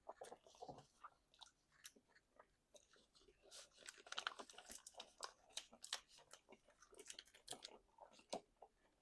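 Quiet close-up chewing and biting into chicken wings: a run of short crunches and wet mouth clicks, busiest from about three and a half to eight seconds in.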